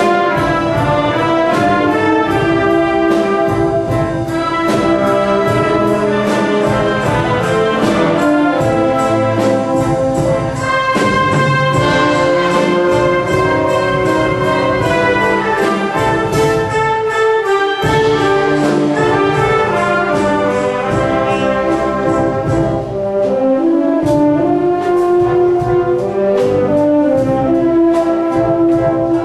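Wind band of brass and winds playing a rhapsody of popular tunes: full ensemble with held brass chords and a melody over a steady percussion beat.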